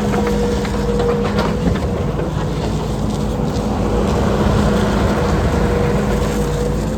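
Kubota SVL75 tracked skid steer's four-cylinder turbo diesel engine running at a steady speed, with a few light clicks in the first two seconds.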